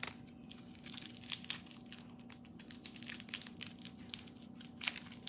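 Paper crinkling and crackling in irregular small bursts as a handmade paper blind bag is handled and squeezed.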